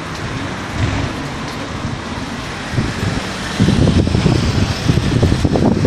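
Wind buffeting a phone microphone over a steady outdoor noise bed, the gusty rumble growing louder about three and a half seconds in.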